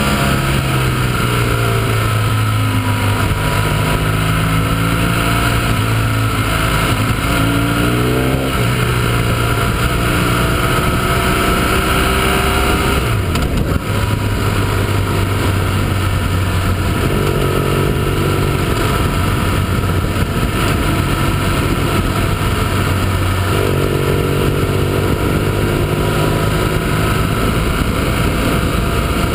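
Motorcycle engine heard from the rider's own bike under way, its pitch stepping up and down with throttle and gear changes, over a steady rush of wind. A short break about thirteen seconds in.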